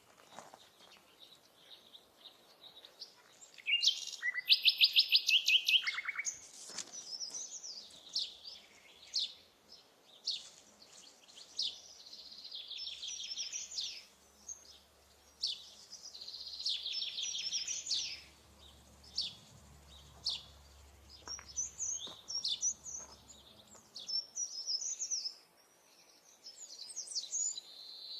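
Songbirds singing: fast trills of rapidly repeated notes, the loudest one about four seconds in, mixed with varied chirps and short phrases.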